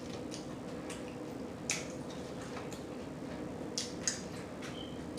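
Close-miked chewing with wet, sharp smacks of lips and mouth at irregular intervals, over a faint steady low hum.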